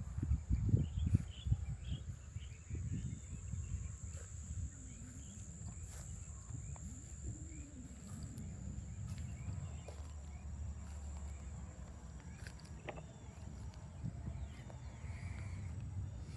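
Outdoor nature ambience: small chirping calls come and go over a steady high-pitched insect drone, with low thumps and rumble in the first two seconds.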